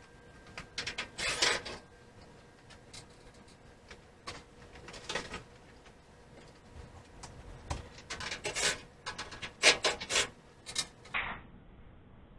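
Intermittent rubbing and scraping handling noises with a few sharp clicks as a microwave's outer cover is worked on, likely around its screws, with the busiest stretch in the last third.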